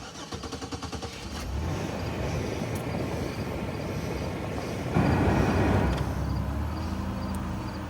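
A 2004 Oldsmobile Alero's engine being started with freshly installed spark plugs: the starter cranks for about a second and a half, then the engine catches and runs. It gets louder in a brief rev about five seconds in, then settles to an even idle.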